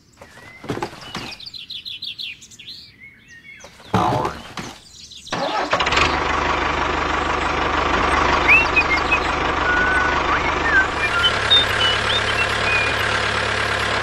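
A few handling clicks and knocks, then, about five and a half seconds in, a small tractor engine starts running steadily, with birds chirping over it.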